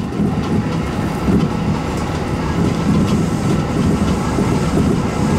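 Kintetsu electric train running along the track, a steady low rumble of wheels and running gear heard from inside the front car, with a few faint clicks.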